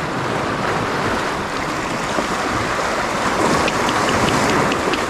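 Steady rush of sea waves, an even wash of water noise with no single splash standing out, and a few faint ticks about three and a half to five seconds in.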